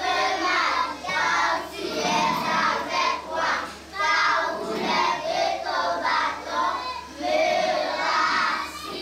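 A group of young girls singing together in unison, phrase after phrase.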